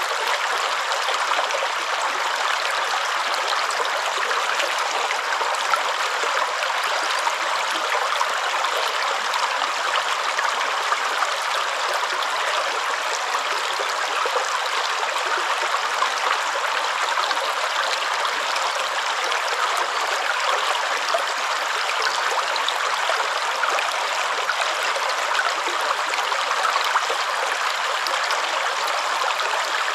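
Running water flowing steadily: an even, unbroken rush of water.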